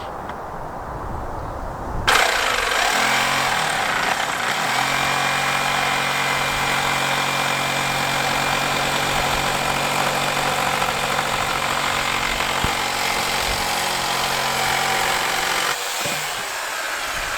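Electric jigsaw cutting. It starts suddenly about two seconds in, runs steadily with a constant motor hum, and stops near the end.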